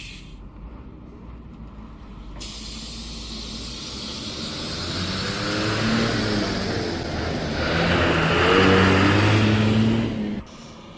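A large bus drives past at speed: its diesel engine's drone and the tyre and wind noise grow louder from about four seconds in, the engine pitch shifting as it comes, peak near the end, then cut off suddenly.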